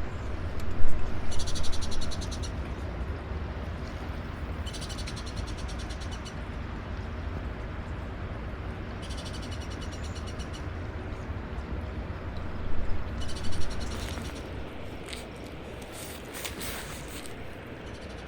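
An animal's rasping trill, each call about a second long and made of rapid pulses, repeated every three to four seconds over a steady low rumble.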